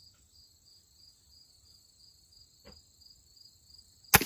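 A scoped pellet rifle with a silencer fires once near the end, a single sharp crack with a short tail. Behind it runs a steady, high, pulsing chirp, several pulses a second.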